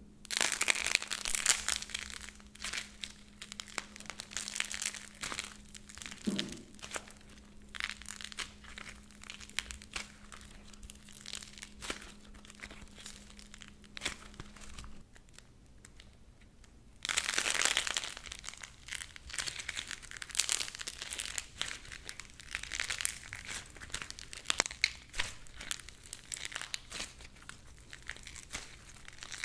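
Soft clay hamburger model being torn apart and squeezed by hand, giving a dense crackling, crinkling and tearing sound. The crackling drops away for a couple of seconds about halfway through, then starts again.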